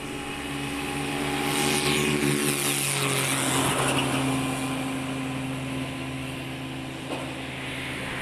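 Farm tractor's diesel engine running under load while its front-loader bucket works into a pile of earth and broken bricks. It grows louder, with added rushing noise, for a couple of seconds about two seconds in, then settles back to a steady run.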